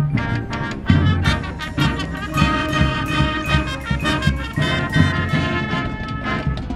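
High school marching band playing: brass horns holding and moving through chords over frequent sharp drum hits and mallet percussion.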